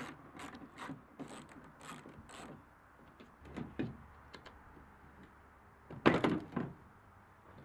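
Light plastic clicks and knocks as a Ford F-150 tail light assembly is worked loose by hand, then a louder clunk and rattle about six seconds in as the lamp housing comes out of its opening.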